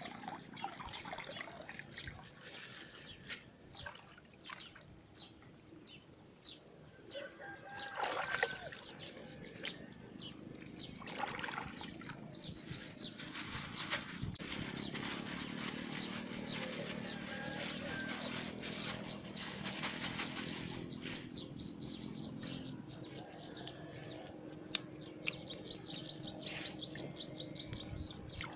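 Hands working a bamboo fish trap in shallow floodwater: water sloshing and dripping, with the crinkle of a plastic bait bag and scattered clicks and rustles. The handling gets denser and busier for several seconds in the middle.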